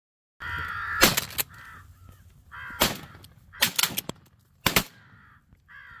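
A volley of shotgun blasts, about seven sharp shots between about one and five seconds in, several close together, as crows caw between them.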